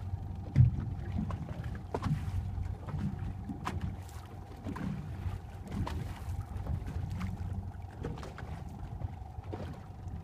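Boat riding on the open sea: an uneven low rumble of wind and water against the hull, with a faint steady hum underneath and a few light knocks.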